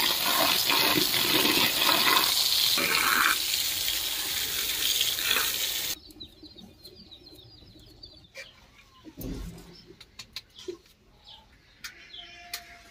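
Water from a tap pouring onto drumstick flowers in a plastic colander while a hand stirs them. The sound cuts off suddenly about halfway through and drops to a much quieter background with faint bird chirps and a few light clicks.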